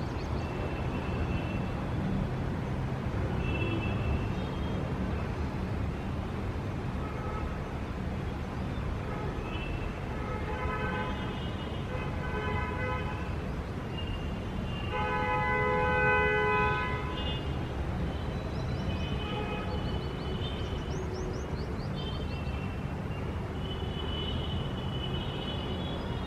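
Street traffic ambience: a steady low rumble of passing vehicles with car horns honking several times, one long, loud honk a little past the middle. Short bird chirps sound near the start and again toward the end.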